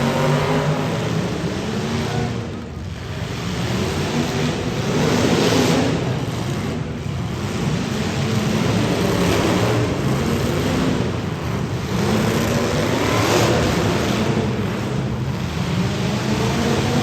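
Demolition derby car engines running and revving, several at once, their pitch rising and falling over a dense noisy haze; the sound dips briefly about two and a half seconds in.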